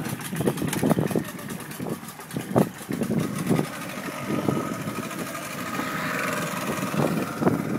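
Outboard motor of a small open boat running, with short irregular knocks throughout.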